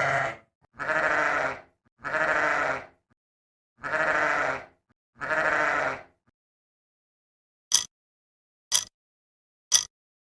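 Sheep bleating: a row of calls about a second long each, ending about six seconds in. Then come three short, sharp clicks about a second apart.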